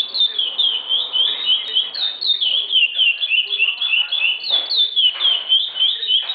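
Caged songbird singing a fast, unbroken run of high chirping notes, several a second, the same few-note phrase repeated over and over.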